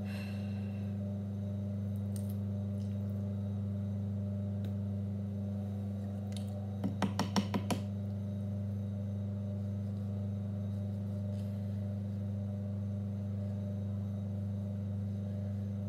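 Steady low electric hum of a potter's wheel motor, with a quick run of about seven sharp clicks about seven seconds in.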